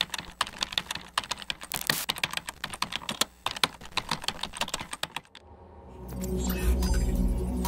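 Rapid computer-keyboard typing clicks, a dense run of keystrokes. After about five seconds the typing stops, and a low electronic music drone swells in near the end.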